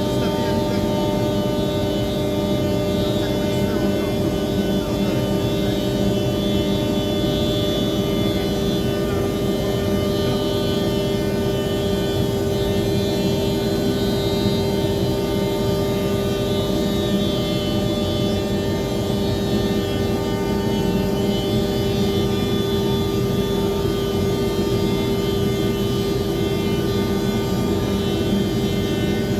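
HOLZ-HER 7405 Evolution CNC machining centre running: a steady machine hum with several held tones over an even rushing noise, the strongest tone a mid-low drone.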